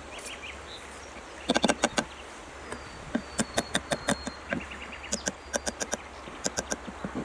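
Quick runs of sharp clicks or taps, about five a second, coming in several short clusters, over a steady low hum with faint high chirps in the background.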